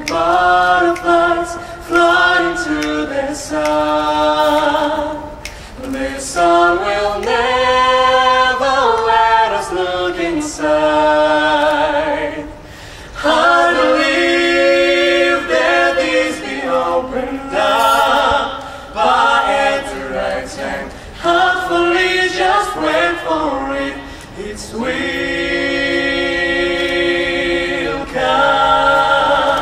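Mixed vocal group of three women and two men singing in close harmony a cappella, with no instruments, in long held phrases broken by short pauses.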